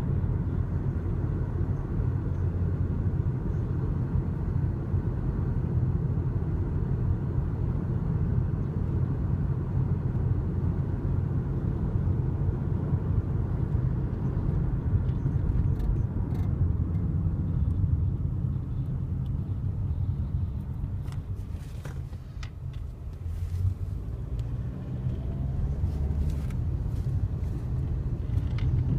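Steady low rumble of a car on the move, with scattered sharp clicks and ticks in the second half.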